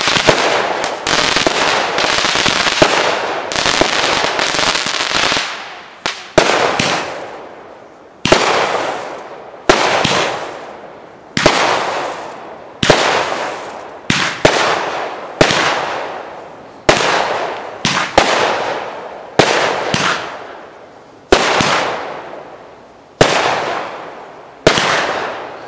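Brightsky 'Full Force' firework, a multi-shot barrage, firing: a dense run of crackling for the first five seconds or so, then single shots about every second and a half, each a sharp bang followed by a fading crackle.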